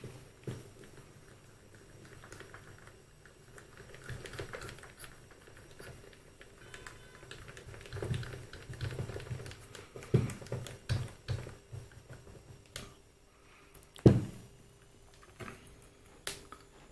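Metal lathe parts and hand tools being handled during topslide reassembly: irregular light clicks and taps, a run of knocks about eight to twelve seconds in, and one sharp knock about fourteen seconds in.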